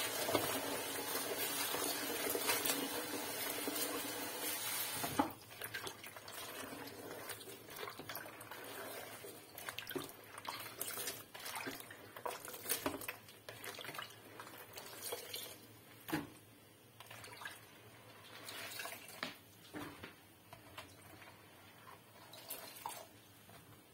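Kitchen tap running into a bowl of diced eggplant while hands rinse the pieces; the water is shut off about five seconds in. After that, hands swish and scoop the wet eggplant cubes in the standing water, with small irregular splashes.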